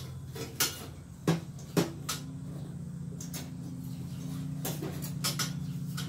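Scattered sharp metallic clicks and clinks as parts are handled inside a gas boiler's cabinet, the two loudest close together a little over a second in, over a steady low hum.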